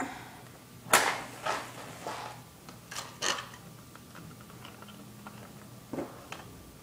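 A box of matches being got out and handled: a sharp click about a second in, then several lighter clicks and small rattling knocks, with one more near the end.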